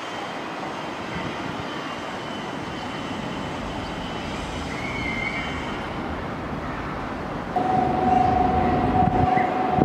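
Nankai electric train passing through the station without stopping: a steady rumble grows suddenly louder about seven and a half seconds in as the train arrives, joined at that moment by a loud, steady high tone that holds to the end.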